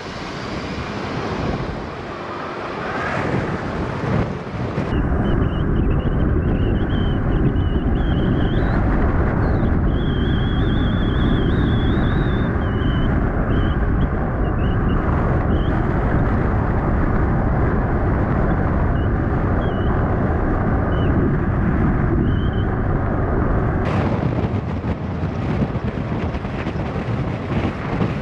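Wind buffeting the microphone of a camera on a moving e-bike: a dense, loud rumble that swells about five seconds in and eases near the end.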